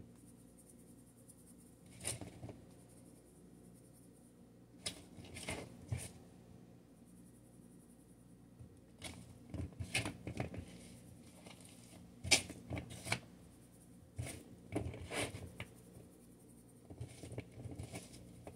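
Hands tossing and mixing raw potato strips on a plastic cutting board to spread the seasoning, with a seasoning shaker handled now and then: scattered soft clicks, scrapes and rustles in short irregular clusters.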